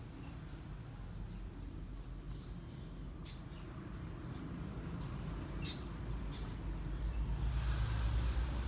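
Birds giving short, sharp high chirps, three of them spaced a few seconds apart, over a steady low rumble.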